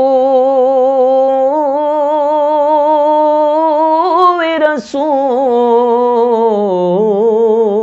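A male voice singing an Urdu naat unaccompanied, drawing out long melismatic vowel phrases with a wavering vibrato. It breaks for a quick breath about five seconds in, then carries on and settles lower near the end.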